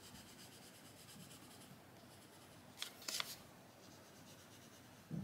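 Coloured pencil (Castle Arts Green Light) shading on paper: faint, steady scratching of the lead across the page, with a few brief sharper strokes about three seconds in.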